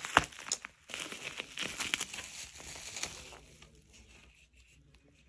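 Crinkling and crackling of gift packaging being handled and opened, a run of sharp crackles that dies away after about three and a half seconds.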